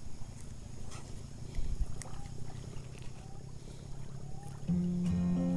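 Low, fluttering wind rumble on the microphone with a few faint clicks while a small fish is unhooked from a micro jig by hand. Background guitar music starts near the end.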